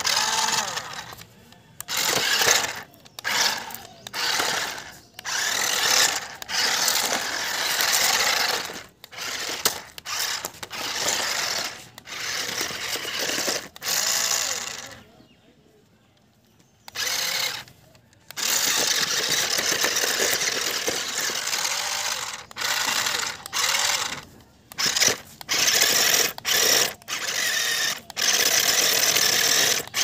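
Toy remote-control stunt car's electric drive motors whirring in bursts as it is driven, starting and stopping every second or two, falling quiet for a couple of seconds about halfway through.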